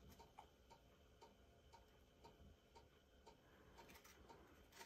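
Near silence with a faint, even ticking, about two ticks a second, from a clock in the room.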